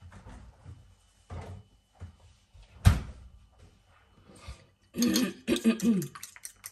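Kitchen handling sounds: a few soft knocks, then one sharp thunk about three seconds in. From about five seconds, a spoon scrapes and clinks against a ceramic bowl as the eggs and cream are stirred.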